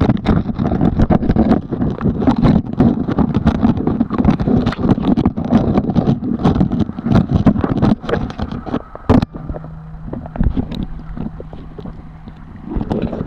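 Rushing river water heard as a heavy rumble on the camera's microphone, scattered with many sharp clicks. About nine seconds in it drops to a quieter rush with a faint steady hum for a few seconds, then comes back loud near the end.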